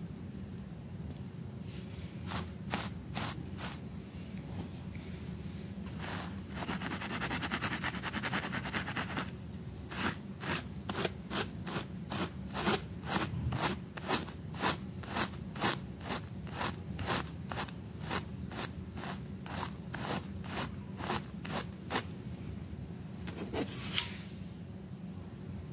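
Stiff-bristled scrub brush scraping back and forth over a wet, foamy rug, in rhythmic strokes about two a second, with a stretch of fast continuous scrubbing a few seconds in. A low steady hum runs underneath.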